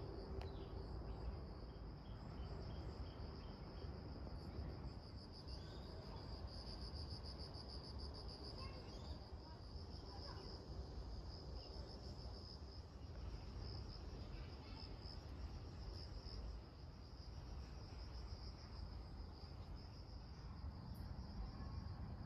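Insects trilling in a steady, high-pitched chorus that swells with a fast pulsing for a few seconds about a quarter of the way in, over a low outdoor rumble.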